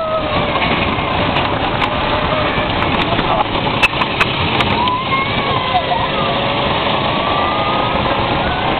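Roller coaster train running fast along the track: a steady rush of wheel rumble and wind, with riders' long rising and falling cries over it and a couple of sharp clicks about four seconds in.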